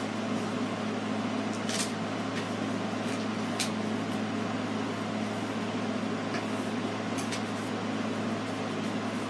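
A steady mechanical hum with a low drone, with a few brief, soft rustles of a sheet of paper being folded in half.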